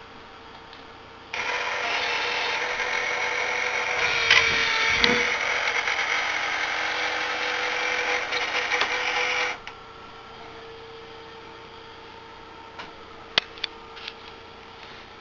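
Small electric gear motor of a homemade azimuth-elevation antenna rotor running for about eight seconds, starting and stopping abruptly. A few sharp clicks follow near the end.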